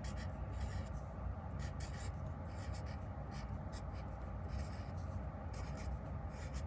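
Black felt-tip marker writing on paper: quick, irregular scratchy strokes of the tip across the sheet, over a steady low hum.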